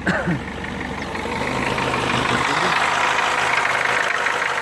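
Car engine running steadily with a knock from the piston pin (wrist pin) inside the piston.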